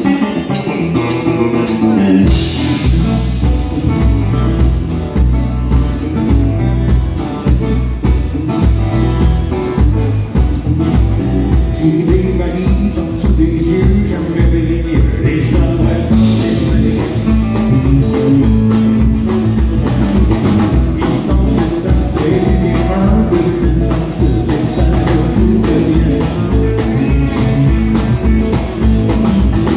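Live country band playing, with acoustic and electric guitars, bass and a steady beat, and a man singing. The full band comes in about two seconds in.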